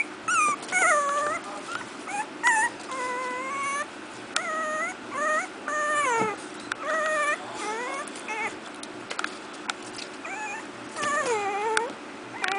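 Four-week-old miniature pinscher puppies whimpering and whining: a string of short, high-pitched calls that bend up and down in pitch, coming one after another.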